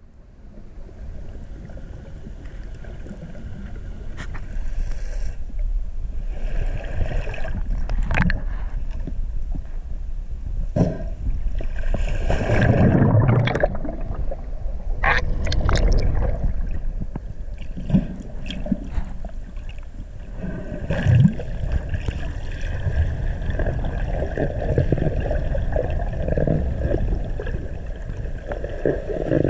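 Underwater sound picked up by a camera in the sea: a steady low rumble of moving water with gurgling bubbles, rising over the first few seconds, broken by scattered knocks and splashy bursts.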